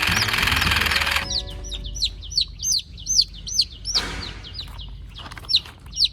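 Chicks peeping, a stream of short high chirps several times a second. A loud, rattling machine-like racket with a few music tones under it cuts off about a second in, and a brief rustling burst comes near the middle.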